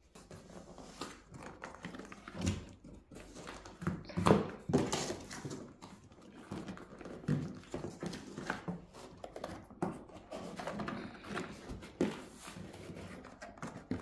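Vacuum cleaner box and packaging being handled and pulled at: irregular rustles, scrapes and knocks, the loudest cluster about four seconds in.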